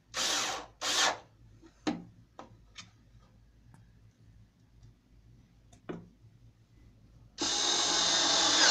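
4.8 V PROMAKER PRO-SD480 cordless screwdriver driving screws into a cabinet hinge. It runs in two short bursts at the start, then a few light clicks as a screw is fitted to the bit by hand, then runs steadily for about a second and a half near the end.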